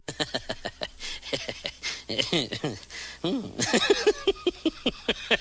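An animal's rapid series of short, yelping calls, several a second, some sliding up and down in pitch.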